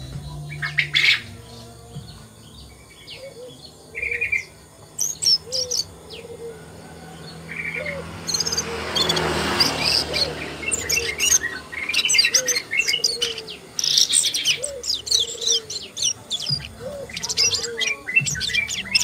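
Asian brown flycatcher singing: quick, high chirps and twittering phrases, sparse at first and then a dense, busy run through the second half. A brief rush of noise comes about halfway through, and a softer low note repeats underneath.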